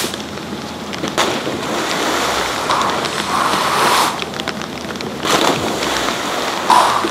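Steady rush of churning water in a water-jump landing pool, with a few louder surges, one of them the splash of a jumper landing in the water late on.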